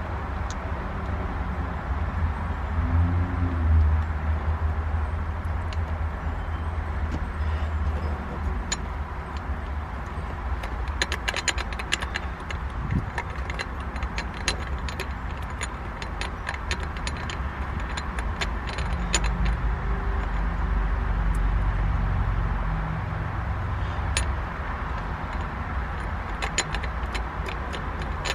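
Small metal parts and hand tools clinking and ticking in short clusters, about halfway through and again near the end, while a manual-transmission short shifter is being fitted. Underneath is a steady low rumble that swells twice.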